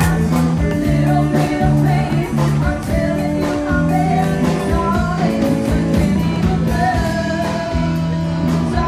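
Live band playing a song: a woman singing into a microphone over electric guitar, bass notes and drums keeping a steady beat.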